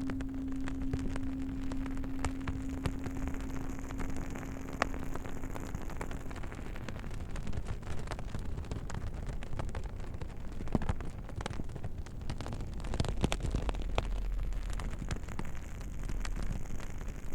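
Campfire crackling and popping, with many irregular sharp snaps over a low rumble of burning. A low singing bowl's single tone hangs over the fire and fades away about six seconds in.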